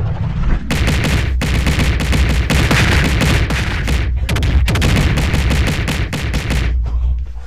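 A loud, unbroken barrage of sharp bangs over a deep rumble, in the manner of rapid gunfire, cutting off suddenly near the end.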